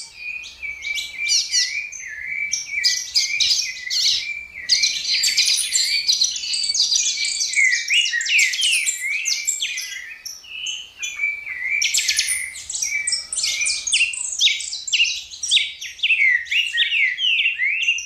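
Birds singing: a dense, continuous run of rapid chirps and quick sweeping whistled notes, with short pauses around eight and twelve seconds in.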